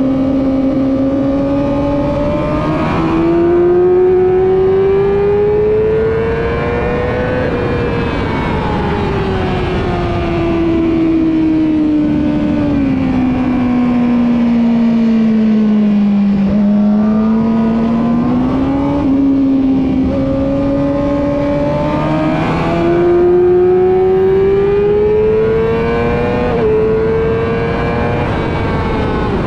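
Yamaha R6's inline-four engine at high revs on track. Its pitch climbs for several seconds, falls slowly to a low point about midway, then climbs again, with small sudden steps in pitch at the gear changes. A rush of wind runs under it.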